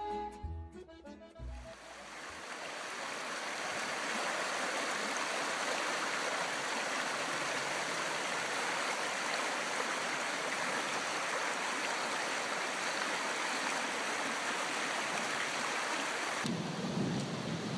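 Shallow mountain river rushing over gravel and stones, a steady even rush. Accordion music fades out during the first two seconds, and a low rumble joins in about a second before the end.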